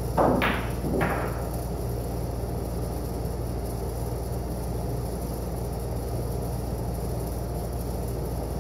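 Two sharp clacks of pool balls striking, about a second apart near the start, the first the louder, over a steady low hum.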